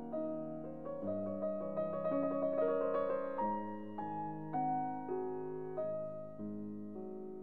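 Background piano music: slow, soft notes, with a quicker run of notes about two to three seconds in.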